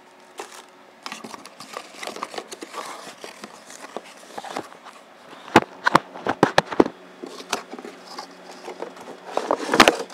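Handling noise from unpacking camera accessories: rustling and scattered small clicks, with a run of sharp knocks about six seconds in and a louder clatter of bumps near the end.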